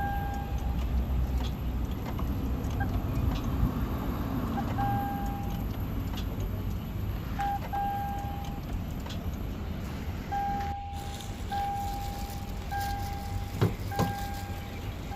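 An electronic beeper sounding a steady mid-pitched tone about eight times at uneven intervals, each beep lasting from a fraction of a second to about a second, over a constant low background rumble with a few sharp clicks.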